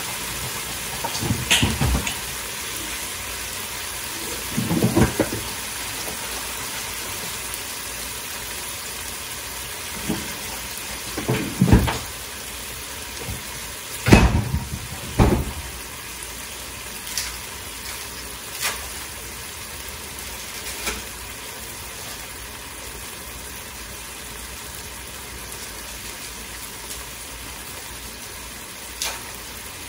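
Ground beef, onions and melting cheese sizzling in a skillet: a steady frying hiss, with a few brief louder noises in the first half, the loudest about 14 seconds in.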